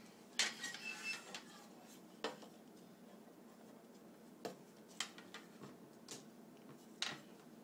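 Small hard parts of a taken-apart TV remote and hand tools being handled, clicking and clattering against each other and a hard surface. A quick flurry of clatter comes about half a second in, followed by single clicks every second or so.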